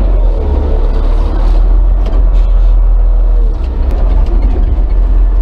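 Diesel engine of a front loader running steadily and loud, heard from inside the cab, as the machine drives with its bucket of snow raised.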